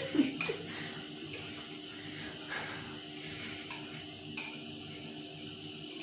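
Metal wire whisk stirring dry flour, cocoa powder and sugar in a ceramic bowl, the wires clinking against the bowl now and then.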